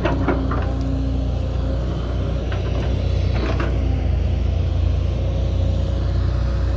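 Heavy diesel engine of earth-moving machinery running steadily under a deep drone, with a few short knocks near the start and again about three seconds in.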